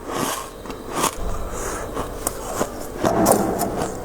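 Freezer frost being scraped, in rough scratching strokes with a few sharp ticks; the loudest stroke comes about three seconds in.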